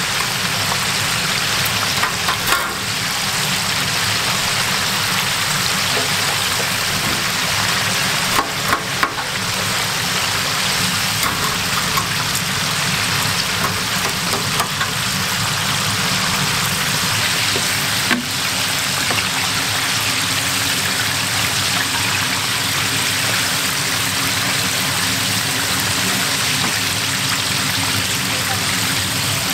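Breaded chicken pieces deep-frying in a stainless steel fryer of hot oil, a steady dense sizzle. A few sharp clicks stand out, about two, eight and a half, and eighteen seconds in, as tongs work over the fryer's wire rack.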